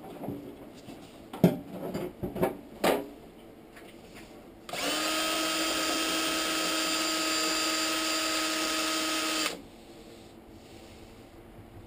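A few sharp knocks and clatters, then a cordless drill runs at a steady speed for about five seconds against the filler-cap opening of a motorcycle fuel tank, stopping abruptly.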